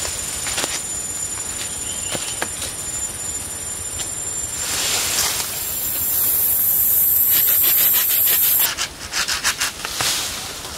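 A steady high insect drone that cuts off suddenly near the end. Over it, brush and wooden stems rustle and scrape as they are cut and pulled.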